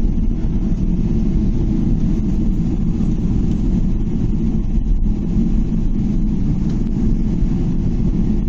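Steady low rumble inside the cabin of a Boeing 777-300ER rolling on the ground just after landing: engine and rolling noise heard from an economy seat.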